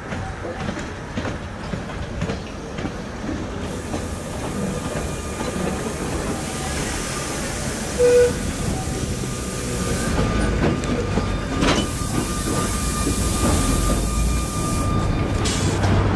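Electric tram running on its rails, heard from on board: wheels clicking and the car rattling, slowly getting louder. A short loud tone about halfway through, and a thin steady whine in the second half.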